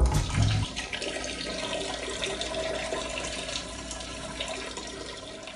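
Rushing water, slowly fading away over several seconds.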